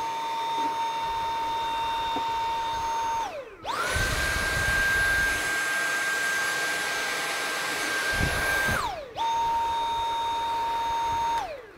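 Dyson cordless stick vacuum running on a Makita 18V battery through an adapter, switched on three times. The motor whines steadily for about three seconds and winds down with a falling pitch. It then runs about five seconds at a noticeably higher pitch and winds down, then runs again at the lower pitch and winds down near the end. This is the first power-up test of the battery conversion, and the vacuum runs properly.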